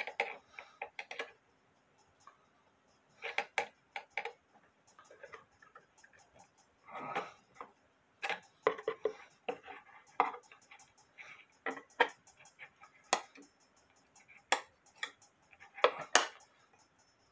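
Irregular metallic clicks, clinks and knocks of tools and parts as a double fusee clock movement is tightened into its wooden drop dial case, some coming in quick clusters.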